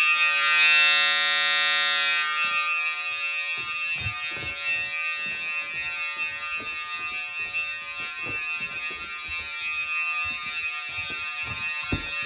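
Fire alarm signals, a CPG PowerTone electronic signal on its 'attention' tone and a Simplex 4050-60 horn, sounding a steady, unbroken, buzzy tone with many overtones. The tone is loudest in the first couple of seconds. From about three and a half seconds in, irregular low thumps sound over it.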